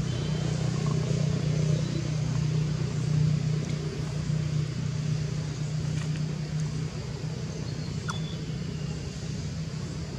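A low, steady engine hum that eases off about seven seconds in, with a few faint high chirps near the end.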